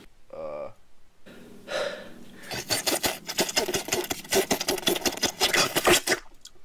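A drink slurped noisily through a metal straw from a tumbler: a fast, crackling, sputtering gurgle lasting about three and a half seconds. A short voice-like sound comes just before it, near the start.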